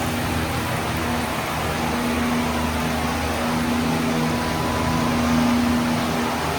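Steady rushing hiss with a low droning hum underneath: the constant background of the conservatory, running water and machinery such as a pump or ventilation fan.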